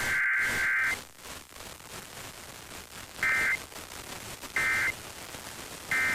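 Emergency Alert System SAME digital data tones, a shrill two-tone warble: a burst that ends about a second in, then three short identical bursts about a second and a half apart, the pattern of the end-of-message code. Faint hiss between the bursts.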